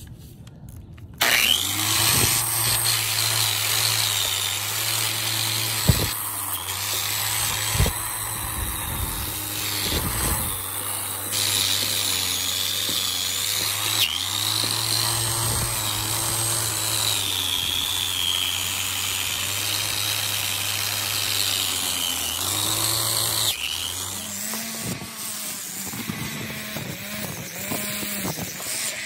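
A power tool's spinning wire wheel scrubbing rust and grime off an old steel exhaust muffler. The sound starts about a second in as a steady motor hum under a harsh scraping hiss, and changes and eases slightly about five seconds before the end.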